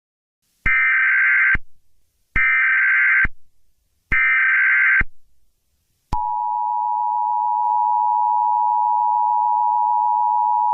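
Emergency Alert System tones. First come three short bursts of shrill, warbling digital header data, each about a second long, about a second apart. About six seconds in, the steady two-tone EAS attention signal starts, announcing an emergency alert broadcast.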